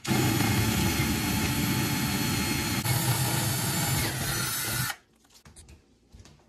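Power drill running a 3/8-inch bit up through the bottom panel of a wall cabinet, drilling the microwave hood's mounting-bolt holes; it runs steadily for about five seconds, then stops suddenly.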